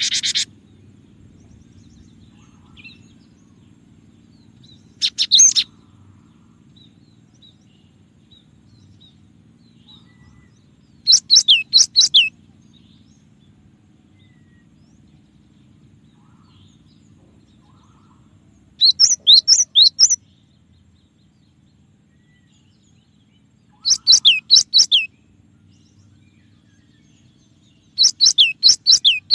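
Cinereous tit (gelatik batu) singing: about six short bursts of quick, high whistled notes, each note sweeping down in pitch, with pauses of several seconds between bursts.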